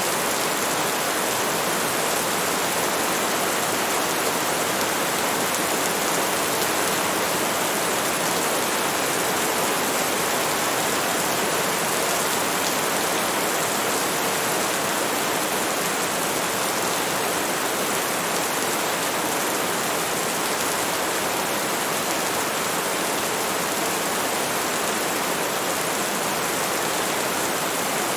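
Steady, even rainfall hiss of a rainstorm, with no single drops or thunder standing out.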